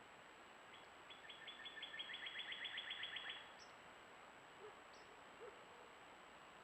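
A bird's trill of evenly repeated notes, about six or seven a second, growing louder for some two and a half seconds and then stopping, followed by a couple of faint short chirps, over a faint steady hiss of the rain-swollen stream.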